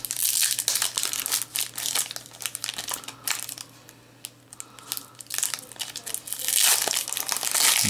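Foil wrapper of a Magic: The Gathering booster pack crinkling and crackling as it is torn open and handled. The crackling is busy at first, dies down to a few faint crinkles around the middle, then picks up loudly again near the end.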